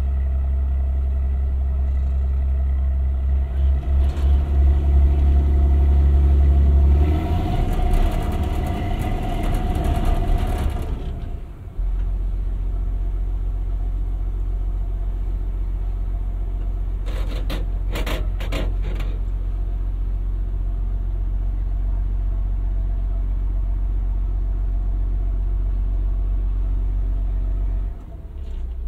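The sailing clipper's inboard diesel engine running steadily under power. It grows louder and rougher for several seconds as more throttle is given, drops off abruptly, then settles back to a steady run. A few sharp clicks come about two-thirds of the way in.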